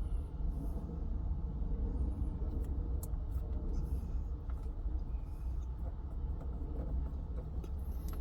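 Steady low rumble inside a pickup truck's cab, with a few faint clicks and taps as a glass screen protector is handled against the infotainment display.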